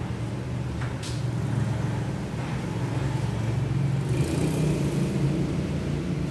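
Steady low engine rumble, with one sharp snap about a second in.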